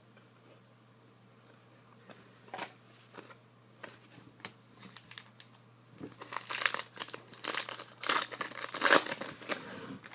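Trading-card pack wrapper crinkling as it is torn open and handled: a few light rustles and clicks at first, then dense, loud crinkling from about six seconds in.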